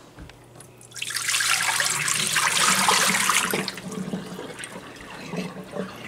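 Water poured from a glass pitcher into a kitchen sink: a loud splashing pour starting about a second in, lasting a little over two seconds, then trailing off to a trickle. It is the cloudy first flush from a newly installed fridge water filter being tipped away.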